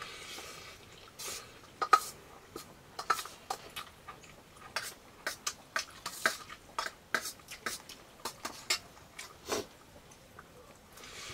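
Metal spoon clicking and scraping on a steel plate during a meal, a string of short, sharp clicks, the loudest about two seconds in.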